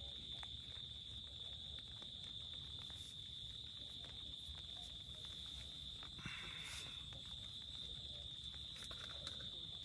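Insects chirring in one steady, high-pitched drone over a low background rumble, with a brief rustle about six seconds in.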